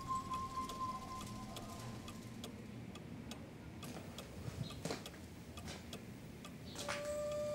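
A clock ticking steadily in a quiet room, with a held musical tone fading out in the first couple of seconds and another held tone coming in near the end.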